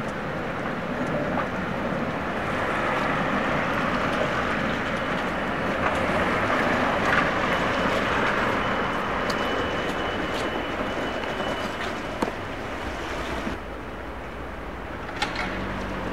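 A coupled pair of Tatra T3 trams rolls past with a steady rumble and hiss of wheels on rails, mixed with street noise and wind on the microphone. There is a faint high whine in the middle part and scattered light clicks. Near the end the sound drops abruptly to quieter street noise.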